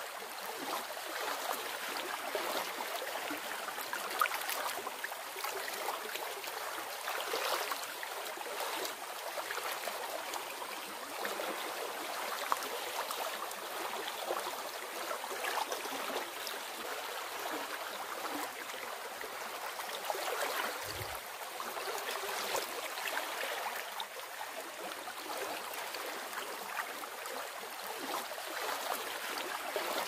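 Shallow river flowing fast over stones, a steady babbling rush of water with small splashing swells.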